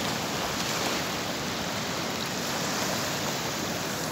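Small sea waves breaking and washing in at the shoreline: a steady, even hiss of surf.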